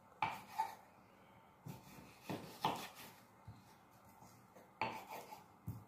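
Knife slicing raw chicken breast on a wooden cutting board, the blade knocking faintly against the board six or seven times at uneven intervals.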